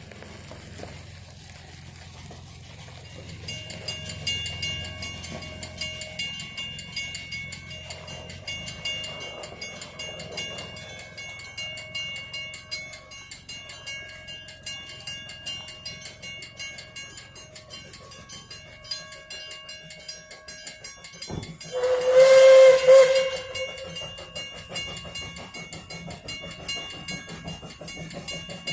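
Puffing Billy narrow-gauge steam locomotive passing with a low running rumble while a bell rings rapidly and steadily. Near the end the locomotive gives one loud steam whistle blast of about a second and a half.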